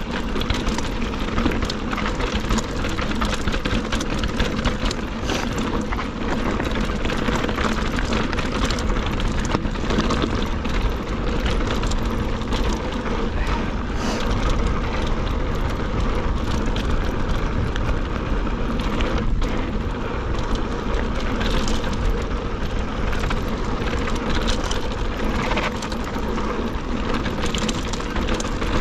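Mountain bike ridden fast over a loose, rocky dirt trail: wind rushing over the camera microphone, tyres crunching on gravel, and the bike rattling with many small clicks and knocks over the rocks.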